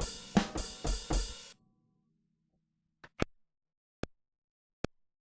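Hip-hop drum loop from an Akai MPC Renaissance, with kick, snare and hi-hats, plays for about a second and a half and stops. After that come four single short hits, about a second apart.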